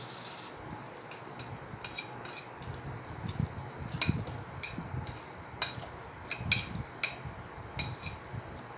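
Red chopsticks clicking and scraping against a white ceramic plate as they stir a plate of black-sauce noodles: a dozen or so sharp, irregular taps, with soft wet chewing underneath.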